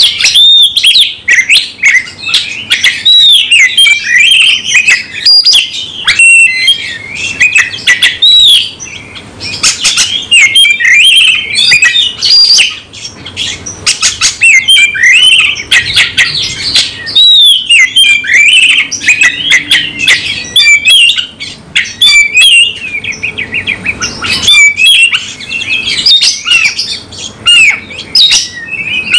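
Oriental magpie-robin singing loudly and without pause: a fast, varied stream of whistled glides, chattering and sharp clicks. This is its aggressive, full-repertoire fighting song.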